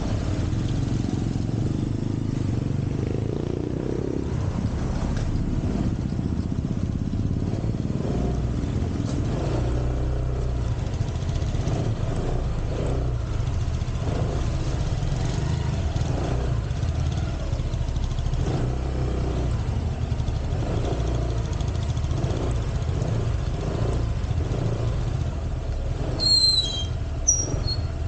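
Motorcycle engine running steadily at low speed with a low rumble, heard from the bike while riding slowly behind a motorcycle with a sidecar. A few short high chirps come through near the end.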